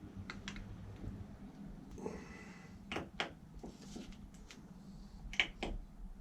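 Small brake master cylinder parts clicking and tapping as they are handled and fitted by hand. The clicks come in pairs about a fifth of a second apart, three times, the loudest near the end, with a short scraping rustle about two seconds in.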